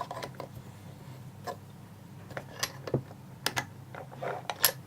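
An old bronze padlock being handled and fitted into a holding mount: a string of irregular small metal clicks and knocks, the loudest a couple of sharp knocks near the end.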